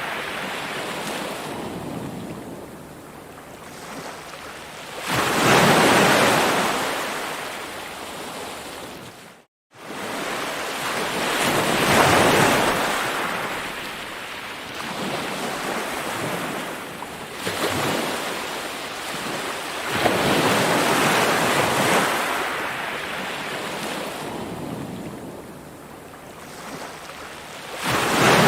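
Ocean waves breaking and washing in, a steady rush of surf that swells and ebbs every few seconds. The sound drops out to silence for a moment about nine and a half seconds in.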